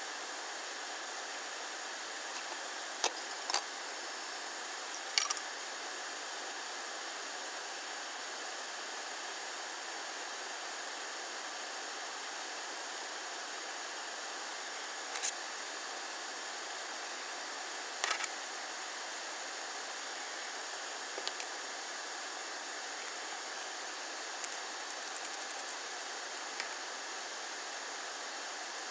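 Steady hiss with a few short, sharp knocks and clicks scattered through it, from a wooden spoon against a frying pan as thick split pea stew is stirred over a gas burner.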